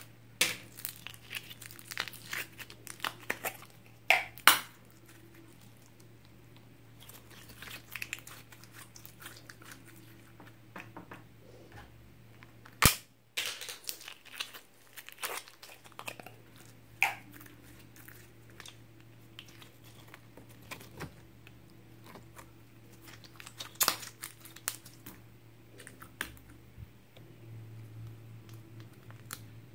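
Hands working slime out of small plastic slime tubs: irregular crinkling, clicking and crackling of the thin plastic containers being opened, pressed and squeezed, mixed with sticky slime squishing, with a few louder sharp snaps.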